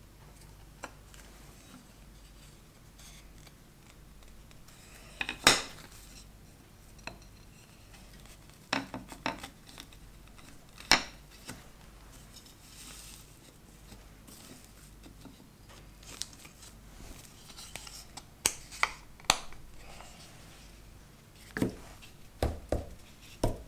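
Wooden frame strips knocking and clacking against each other and the workbench as they are handled and fitted: about a dozen sharp, irregular knocks, the loudest about five and eleven seconds in, with a cluster near the end, over a steady low hum.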